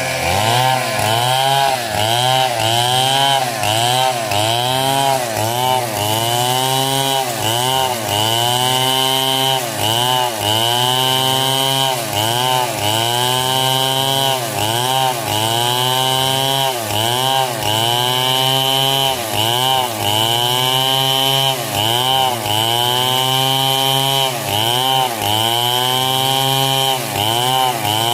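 Stihl chainsaw cutting coconut palm wood. The engine pitch dips and recovers over and over, a little faster than once a second, as the chain loads in the cut.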